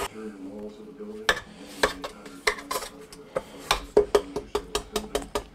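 Stand mixer running, its flat beater clinking against the stainless steel bowl again and again as it creams butter and sugar. The clicks come faster toward the end, over a faint hum.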